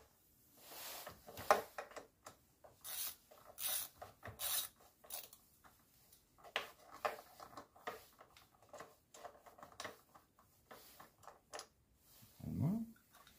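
Hands working on a VW Lupo's plastic engine cover and fittings: scattered clicks, rubs and scrapes of plastic parts, with the engine off. Near the end there is a short low rising sound.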